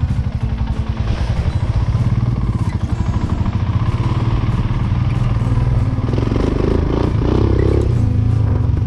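Motorcycle engine running steadily as the bike is ridden along a bush track, with a rougher patch of noise about six seconds in.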